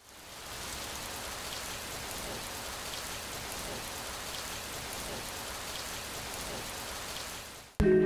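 Steady rain falling on a wet paved street: an even hiss with scattered drop ticks. It fades in at the start and cuts off sharply near the end, where music comes in.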